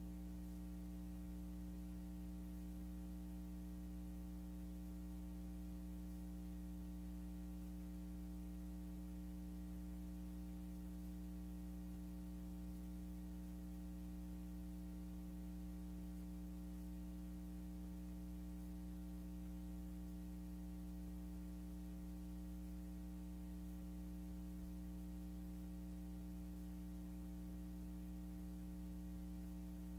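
Steady electrical hum with several fainter overtones and a light hiss, unchanging throughout: the empty soundtrack of silent film footage, with no recorded sound of its own.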